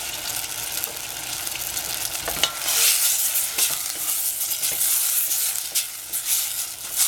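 Tomato chunks sizzling in hot oil in a stainless steel saucepan. About two and a half seconds in there is a knock, then a wooden spatula stirs the tomatoes and the sizzling grows louder.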